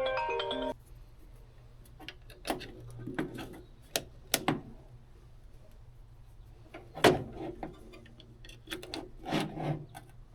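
Mallet-percussion music ends about a second in. After it come a few scattered sharp clicks and knocks over a low steady hum.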